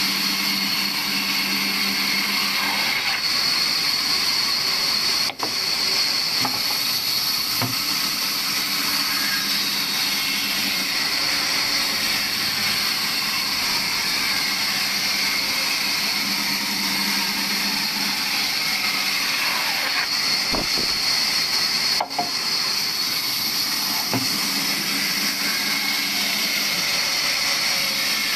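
Large vertical band saw ripping lengthwise through a wooden log: a steady high whine over the machine's running noise, dropping out for an instant twice.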